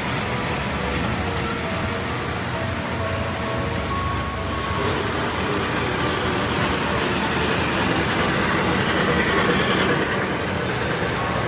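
Toy train layout running: a steady mechanical rumble and whir from the trains and animated miniature rides, with a low hum and faint music underneath.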